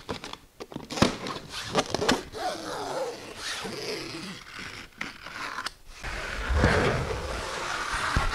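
Old nylon skin being peeled by hand off the wooden frame of a skin-on-frame kayak: fabric ripping and scraping in irregular pulls, with sharp snaps about one and two seconds in and a longer, louder rip near the end.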